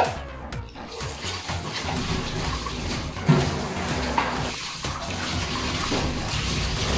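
Wet sucking and chewing sounds of someone eating shell-on garlic butter shrimp with the fingers, with a sharper loud smack a little past three seconds, over a steady rushing noise.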